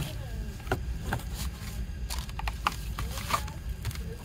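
Hands handling a plastic CD jewel case, a card sleeve and cellophane-wrapped inserts on a cloth-covered table: scattered light taps, clicks and rustles, with a few faint plastic squeaks, over a steady low hum.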